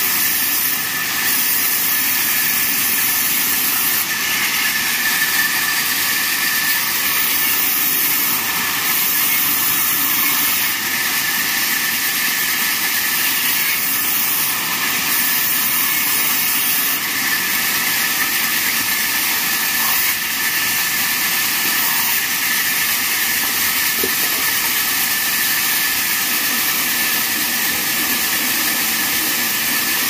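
Large vertical band sawmill running, its blade cutting through a log and planks fed by hand: a steady hiss with a high whine that does not let up.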